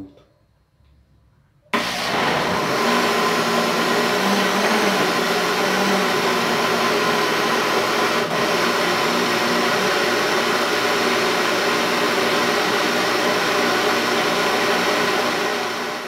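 Electric countertop blender switched on about two seconds in and running steadily at high speed, mixing a thick cake batter of eggs, milk, oil, sugar, cornmeal and cornstarch.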